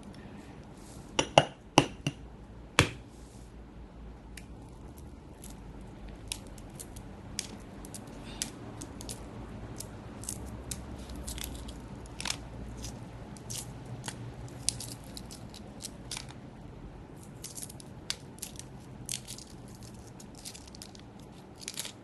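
Hard-boiled egg knocked sharply about four times to crack its shell, then many small crackles and snaps as the shell is peeled off by hand.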